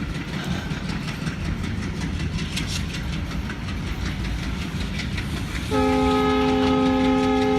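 Freight train's tank wagons rolling past with a low rumble and clicks over the rail joints. About six seconds in, a locomotive's multi-tone horn starts and holds steady, louder than the rolling train.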